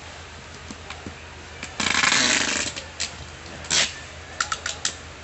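Cardboard on a wooden tomato crate being pulled open and handled: a long scraping rustle about two seconds in, a shorter one just before four seconds, then a few quick knocks.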